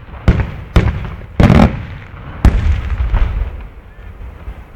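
Daytime firework shells bursting overhead: four loud bangs in the first two and a half seconds, the third a longer crackling burst, each followed by a rolling echo that dies away into a low rumble with a few faint pops.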